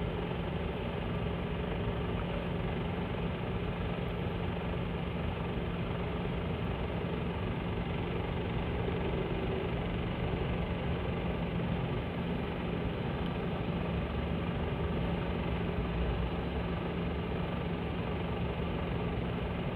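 Steady drone of idling vehicle engines with a constant low hum, unchanging throughout.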